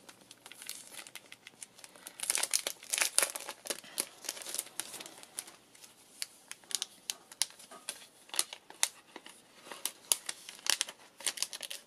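Clear plastic packaging sleeve and a translucent paper envelope crinkling and rustling as they are handled and opened, in irregular crackles, busiest a couple of seconds in.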